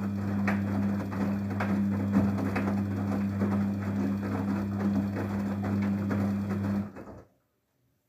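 Daewoo DWD-FT1013 front-loading washing machine tumbling wet laundry in the fabric-softener rinse. A steady motor hum runs under water and clothes sloshing in the drum, which comes in strokes about twice a second. It all stops about seven seconds in.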